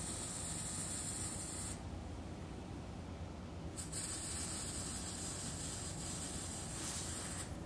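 Wire-feed (MIG) welding arc hissing on steel as a bead is laid. It stops about two seconds in, starts again about two seconds later and runs until near the end.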